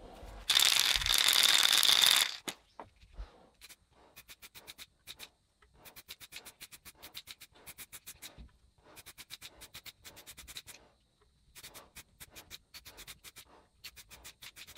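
Aerosol spray paint can spraying: a loud hiss lasting about two seconds, starting about half a second in. After it come bursts of rapid, even clicks, a second or two at a time with short gaps.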